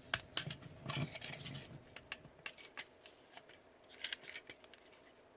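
Scattered small clicks and knocks of a plastic Transformers action figure's joints and parts being moved by hand, with a few soft thuds in the first two seconds, then sparser clicks.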